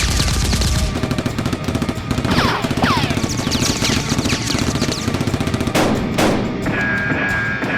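Sustained rapid automatic gunfire, a dense run of shots with no pause, from a gunfight sound effect laid over the action.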